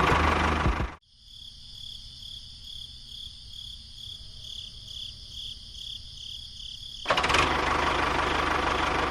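A small engine running loud, cut off abruptly about a second in. A quieter high whine then pulses about two to three times a second. The loud engine noise comes back about seven seconds in.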